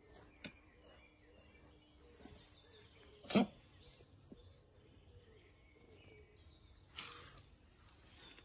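Garden birdsong: a small bird sings short, high, repeated phrases through the second half, over quiet outdoor ambience. There is a single loud knock or bump about three seconds in.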